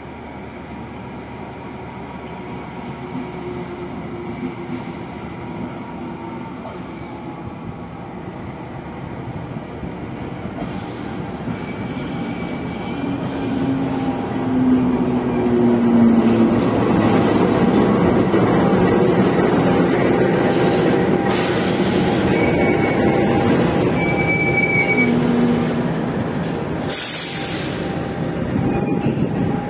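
Passenger train led by a KAI diesel-electric locomotive running in on the adjacent track. It grows steadily louder over the first half as the locomotive comes up and passes, then the coaches roll by with a steady rumble and short high wheel squeals.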